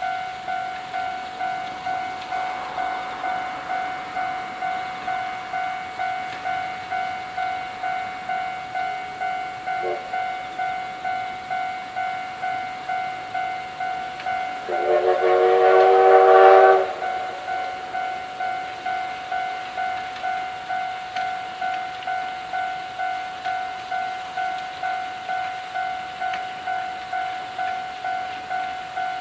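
A level-crossing warning bell ringing steadily in even repeating strokes, and about halfway through, the C11 steam locomotive's whistle blowing for about two seconds, louder than the bell.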